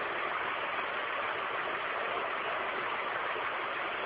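Steady hiss of background noise with no speech, even throughout and sitting mostly in the upper-middle range.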